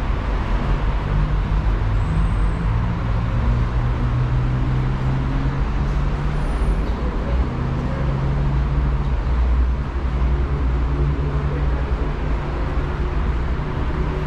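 Street traffic: a heavy vehicle's engine running steadily close by over a continuous roadway rumble.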